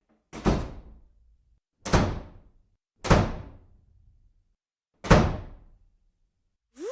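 Four heavy thuds at uneven intervals, each a sharp hit that dies away within about half a second.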